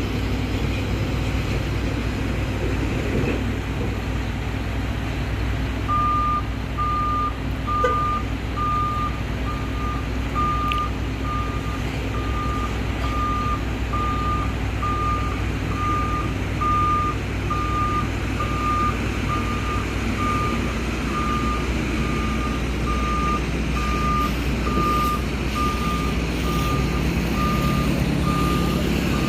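Heavy diesel engines running steadily, joined about six seconds in by a reversing alarm beeping at a single pitch about once a second.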